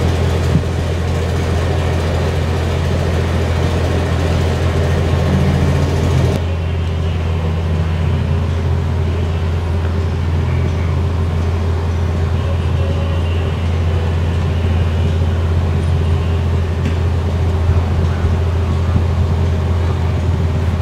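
An engine running steadily with a low, even hum, and faint voices in the background; the higher sounds drop away abruptly about six seconds in.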